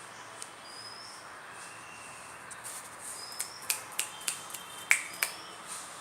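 A quick run of about eight sharp clicks or snaps in under three seconds, the loudest near the end of the run, over a steady high hiss with a few faint short chirps.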